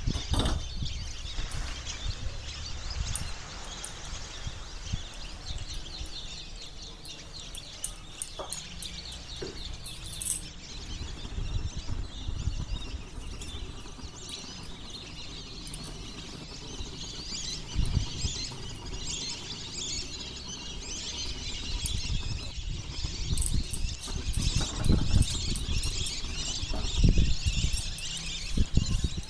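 Small birds chirping and twittering in the background over a low rumble, with a few dull knocks, the last and loudest near the end.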